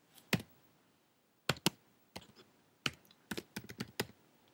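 Computer keyboard keystrokes while typing code: a few scattered key presses, then a quicker run of typing in the second half.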